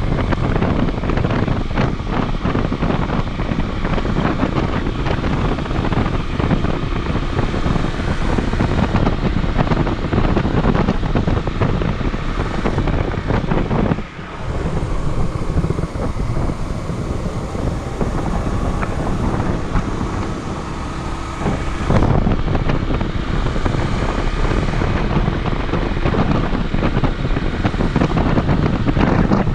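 Wind buffeting the microphone while riding a Honda CD125T motorcycle, its 125 cc parallel-twin engine running under the wind noise. The noise dips sharply for a moment about halfway through.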